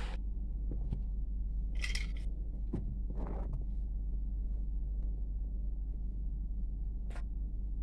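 A steady low hum, with a few faint short knocks and rustles about two, three and seven seconds in.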